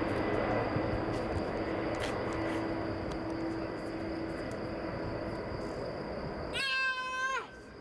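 Four-engine Boeing 747-400 jet airliner on final approach to land, its engines a steady rushing noise that slowly fades. Near the end the engine noise cuts out abruptly and a short high wail rises, holds and falls for under a second.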